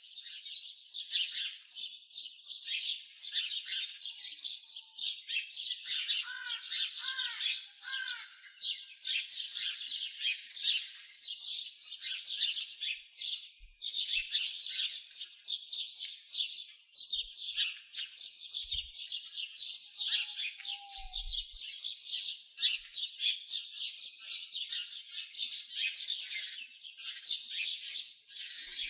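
A chorus of birds chirping and singing, many short high calls overlapping without a break, with a few lower, repeated arching notes about six to eight seconds in.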